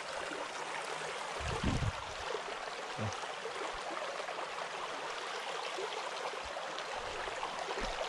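Shallow, pebbly stream flowing: a steady rush of running water. There is a low bump about one and a half seconds in and a smaller one about three seconds in.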